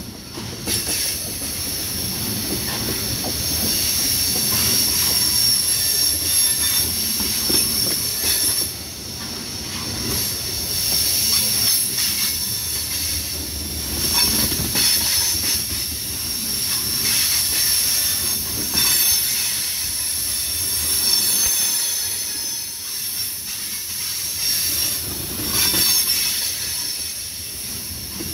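Freight train tank cars rolling past at close range: a steady high-pitched squeal from the steel wheels over a low rumble of wheels on rail, going on without a break.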